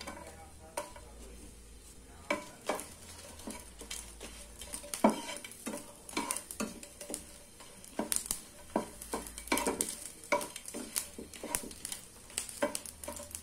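Wooden spatula stirring dried red chillies and garlic cloves in hot oil in a non-stick frying pan, giving many light knocks and scrapes against the pan over a faint sizzle.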